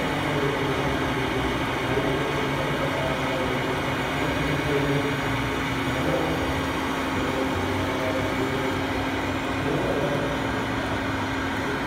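Steady hum and hubbub of a busy exhibition hall, with faint indistinct voices in the background.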